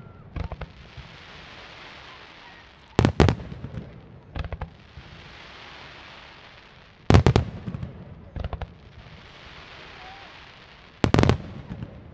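Aerial firework shells bursting overhead: a volley of sharp bangs about every four seconds, with a smaller group of pops in between. Between the volleys there is a steady hiss as the glittering stars burn out.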